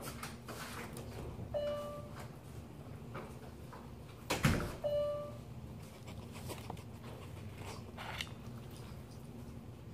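Front door shutting with a loud thud about four and a half seconds in. A short high whine comes about a second and a half in and again just after the door shuts, typical of a dog whining as its owner leaves.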